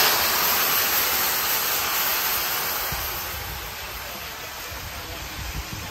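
Marinated armadillo meat sizzling hard after going into a pot of smoking-hot caramelised sugar, the browning step of a Trinidadian curry. The sizzle comes in suddenly just before and slowly dies down as the pot cools.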